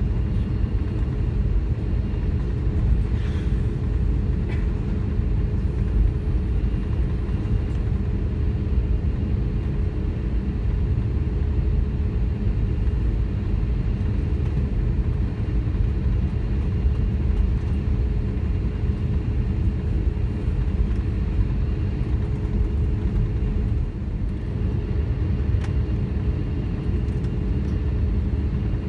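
Cabin sound of an Airbus A321-231 taxiing, heard from inside the cabin: its IAE V2500 engines turning at taxi power and the airframe rolling, giving a steady low rumble with a constant hum.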